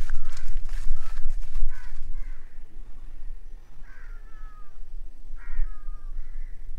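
Crows cawing: short calls in the first two seconds, then two clear, slightly falling caws about a second and a half apart. Underneath is a low rumble and rustle, loudest at the start.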